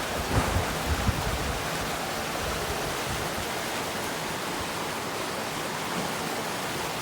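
Steady rush of river water running with a strong flow. A few low bumps come in the first second and a half.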